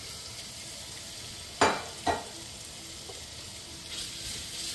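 Raw shrimp sizzling steadily in hot olive oil in a pan, with two sharp knocks about a second and a half and two seconds in. Near the end a spoon stirs them and the sizzle gets louder.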